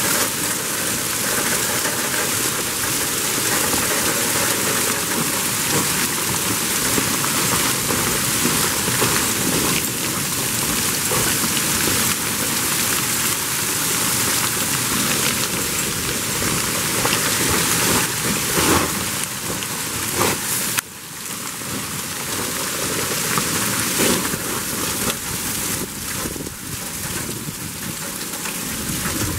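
Hail and heavy rain pelting down on the ground and deck in a dense, steady hiss, with a few louder knocks about two-thirds of the way through.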